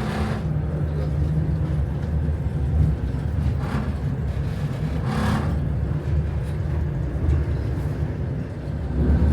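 Passenger train carriage running on the rails, heard from inside: a steady low rumble, with two brief louder noises about four and five seconds in.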